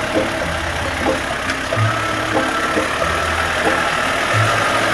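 Toyota Land Cruiser jeep's engine running at low speed as the vehicle crawls over a rough, stony track.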